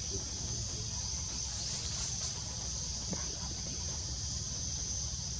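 Insects droning steadily at one high pitch, over a constant low rumble.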